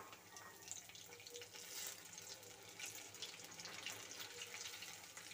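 Sabudana pakoras deep-frying in hot oil in a kadai: a faint, steady sizzle with fine crackling.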